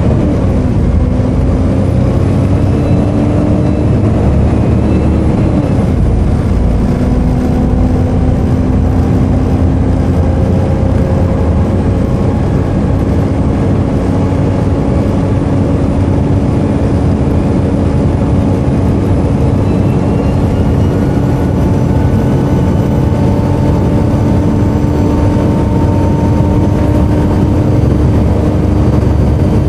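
Volvo B7TL double-decker bus's diesel engine pulling under way, with a faint high turbo whine above the engine note. The engine note drops and settles about a second in and again around six seconds in, like gear changes, then holds steady while the high whine slowly rises near the two-thirds mark.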